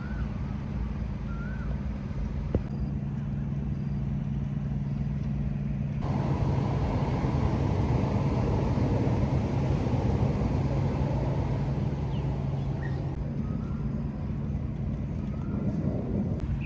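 Steady low rumble of road traffic, swelling for several seconds from about six seconds in as a vehicle goes by, with a few short bird chirps over it.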